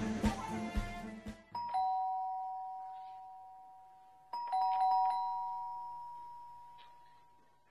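Background music ends about a second and a half in, then a two-tone ding-dong doorbell chime sounds twice, about three seconds apart: a high note followed by a lower one, each ringing on and slowly fading.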